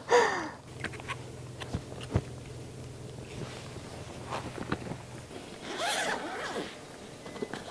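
Zipper on a fabric carrying bag pulled open in one quick run about six seconds in, after a few faint light clicks.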